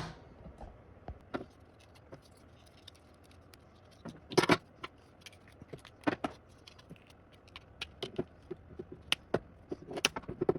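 Scattered light clicks and taps of small metal parts and a tool being handled while old rubber foot mounts and melted inserts are worked out of a 1931 Royal SX typewriter's base. There is a sharper knock about four and a half seconds in and a quick run of clicks near the end.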